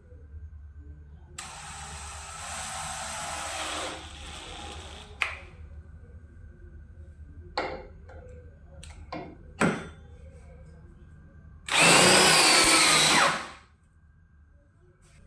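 DeWalt 20V Max XR brushless cordless hammer drill running twice. The first run lasts about two and a half seconds and grows louder. The second, louder run comes near the end and lasts about two seconds, its pitch wavering. A few sharp clicks fall in between.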